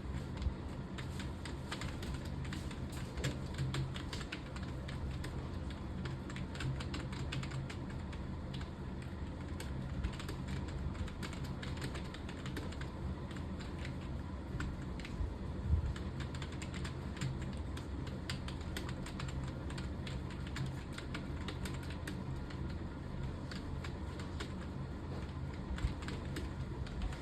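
Computer keyboard being typed on quickly and without pause: a steady stream of key clicks, with a few louder knocks among them.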